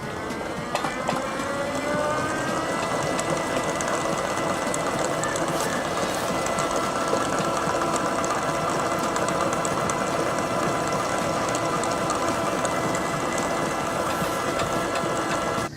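Dalton universal mixer's electric drive starting up: a whine that rises in pitch over the first two to three seconds as the motor and gearing come up to speed, then running steadily with a constant whine.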